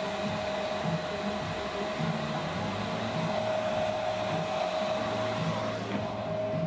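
Handheld hair dryer blowing on freshly cut bangs: a steady rush of air with a steady whine from the motor. The rush thins out near the end.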